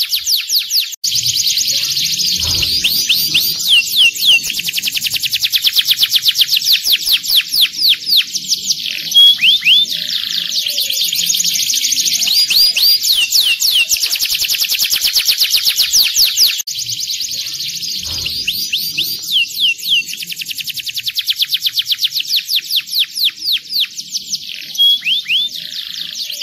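Domestic canary singing a long, loud, nearly continuous song of rapid rolling trills and quick pitch glides, with brief breaks about a second in and a little past the middle.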